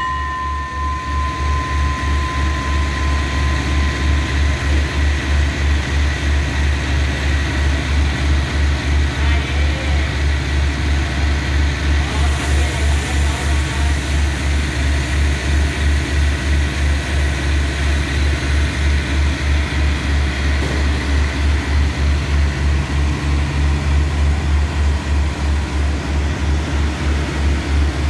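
Passenger train's diesel engine running with a steady low throb that pulses about three times a second.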